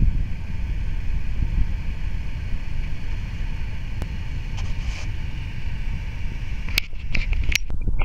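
Steady rushing of a waterfall and the churning water of the pool below it, mixed with a heavy low rumble of wind buffeting the microphone. The hiss briefly thins out near the end.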